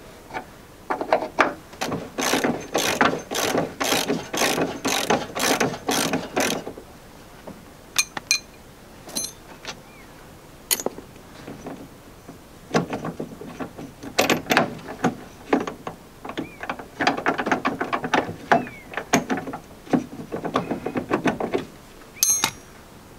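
Hand ratchet clicking in runs of quick strokes, with a pause in the middle, as a freed nut is wound off a rusty chassis bolt.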